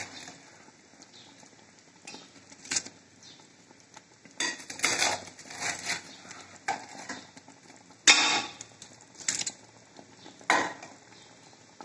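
Metal spoon scraping and knocking against a metal cooking pot while set curd is spooned into the curry, in a handful of scattered clatters with the loudest about eight seconds in.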